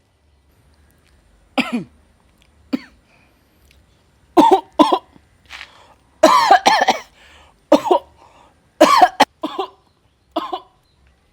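Coughing: two single coughs first, then coughs in quick pairs and a longer fit of several coughs in the middle.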